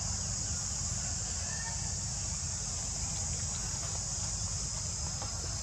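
Steady, high-pitched chorus of insects with no breaks, over a constant low rumble.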